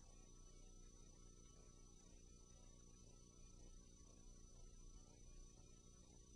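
Near silence: a faint, steady electrical hum with a thin high tone and hiss, the noise floor of a silent film transfer.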